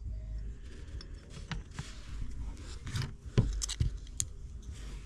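Small metallic clicks and scrapes of steel gears being worked off their splined shafts in an open dirt-bike engine case, with a sharper click a little after three seconds in and a short high metal ting near four seconds.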